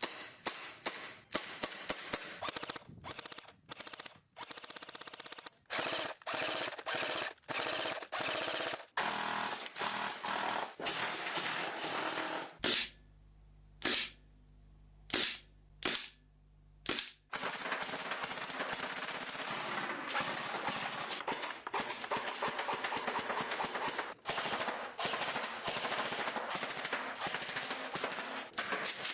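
Gas-powered airsoft guns firing in rapid automatic bursts. About halfway through the firing stops for a few seconds, leaving a low hum broken by a few single shots, then the rapid fire resumes.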